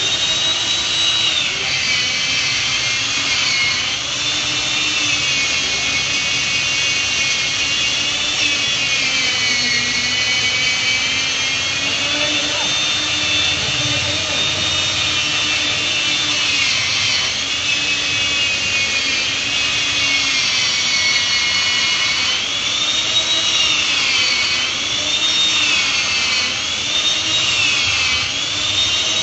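Chainsaw running at high speed as it cuts into a thick tree trunk, its whine sagging and rising in pitch again and again.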